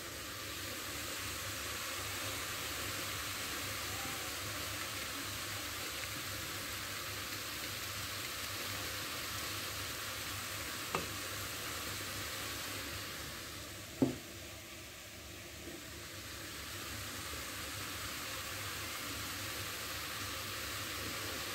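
Chopped stuffing mixture sizzling steadily as it fries in a stainless steel pot, with two light knocks about eleven and fourteen seconds in.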